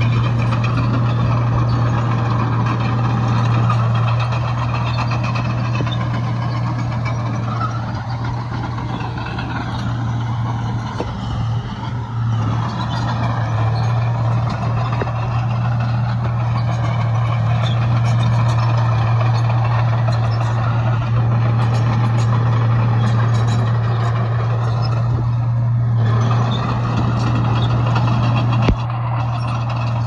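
Heavy diesel earthmoving machinery running steadily, a deep constant engine drone with wavering mechanical noise above it, and one sharp knock near the end.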